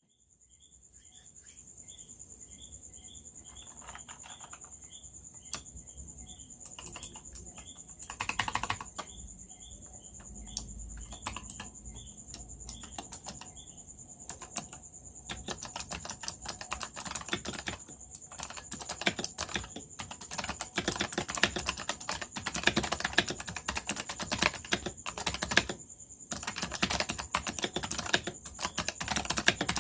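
Keyboard with Razer Purple clicky opto-mechanical switches being typed on: scattered single keystrokes at first, then fast, continuous typing through the second half.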